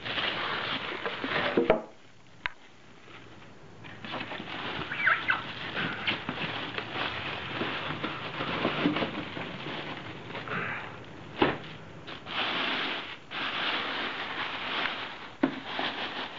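Plastic bag wrapping crinkling and rustling as it is handled and pulled off a laser printer. It comes in irregular bursts with a few sharp crackles, and there is a quieter lull about two seconds in.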